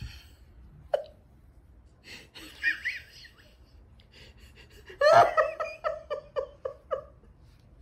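A person laughing off-mic: a short breathy sound about a second in, a soft laugh near three seconds, then a run of quick ha-ha-ha pulses about five seconds in that fades out over about two seconds.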